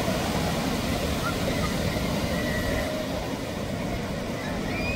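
Steady low rush of surf breaking on a sandy beach, with faint distant voices of people in the water.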